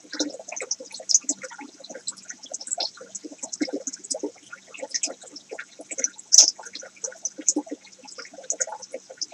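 Tank water bubbling and gurgling where a filter pump's outflow churns the surface: a steady run of small, irregular pops and splashes, with one sharper pop a little past the middle.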